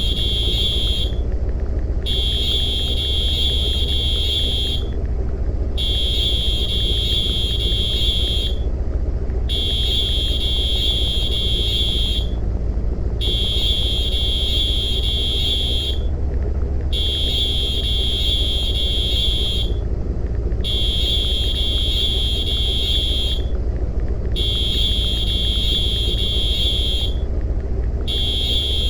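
An electronic alarm sounding a steady high-pitched tone in long pulses, about three seconds on and one second off, repeating over a constant low rumble.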